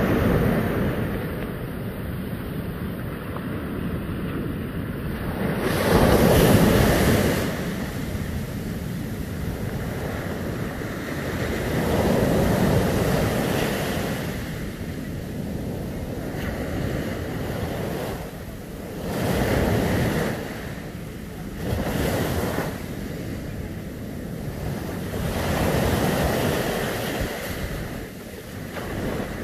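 Surf breaking and washing up a sandy beach, swelling every few seconds, with wind buffeting the microphone.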